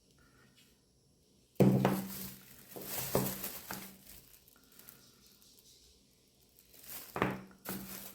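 Handling noise from unboxing a tripod stand: a sudden knock about a second and a half in, then rustling and clattering of the packaging and tripod parts, going quiet midway and coming back with more knocks and rustles near the end.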